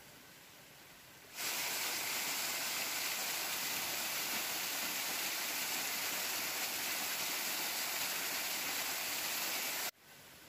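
Small waterfall splashing over rocks: a steady rushing noise that starts abruptly about a second and a half in and cuts off abruptly near the end, with only faint hiss on either side.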